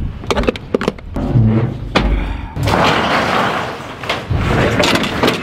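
A corrugated metal roll-up door being raised: a few knocks and clunks, then a rattling rush for about two seconds about halfway through as the door rolls up, followed by more knocks.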